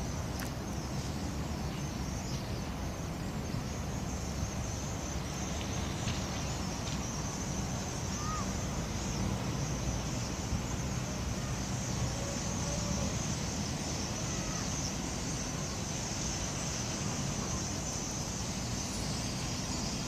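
Steady outdoor background with a low rumble, over which a large flock of small birds flying overhead makes a faint, continuous high chatter, with a few single chirps standing out.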